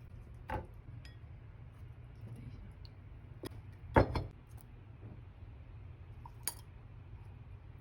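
A few sharp clinks and knocks of kitchenware being handled and set down, the loudest pair about four seconds in, over a low steady hum.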